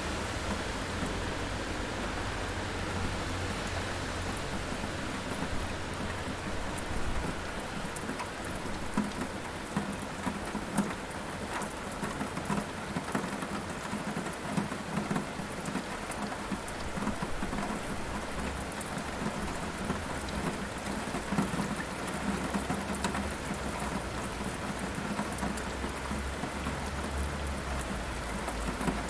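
Steady heavy rain with a dense patter of individual drops, and thunder rumbling low in the background near the start and again near the end.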